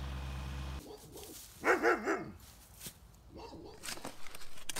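A dog barking: two loud barks close together, then a fainter one. Before them, under a second in, a steady tractor engine hum stops abruptly.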